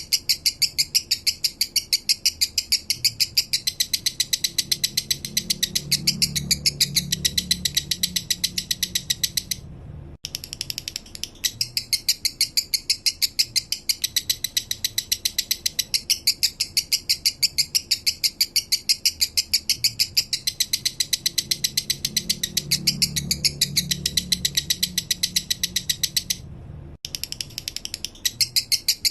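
Male lovebird chattering in a long, rapid string of high chirps, its slow 'minor' song, breaking off briefly about ten seconds in and again near the end.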